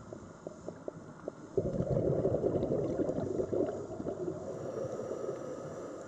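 Scuba diver's exhaled bubbles gurgling out of the regulator, starting suddenly about one and a half seconds in and fading over the next few seconds. Scattered faint clicks come before it.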